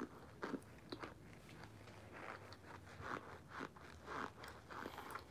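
A person chewing baked cornstarch chunks: faint, irregular crunches and mouth clicks, one or two a second.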